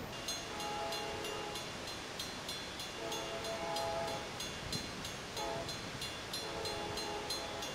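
Approaching train's horn blowing the grade-crossing signal in a multi-note chord: two long blasts, a short one, then a long one. Under it the crossing signal bells ding rapidly and evenly.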